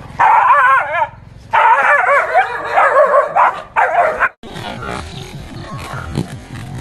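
A dog yelping and whining in high, wavering cries, in two bouts, the second lasting about two and a half seconds. A sudden cut a little over four seconds in leaves quieter mixed noise.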